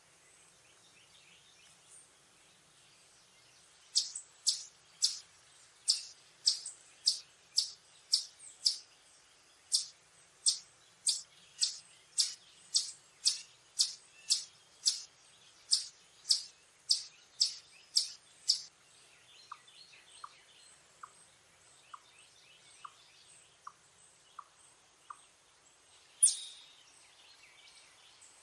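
Eastern chipmunk giving its chip call: sharp, high chips repeated about twice a second for some fifteen seconds, then a run of fainter, lower ticks. A single loud, sharp high sound near the end.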